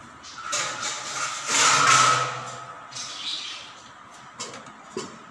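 A steel lid and utensil scraping and clanking against the rim of a steel kadhai as the gravy is covered: a metallic scrape with a ringing tone, loudest about two seconds in. Two light clicks follow near the end.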